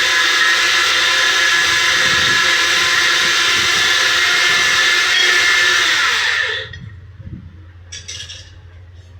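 An electric workshop machine's motor running steadily and loudly, then switched off about six and a half seconds in and spinning down with a falling pitch. A few light metallic clinks follow near the end over a low hum.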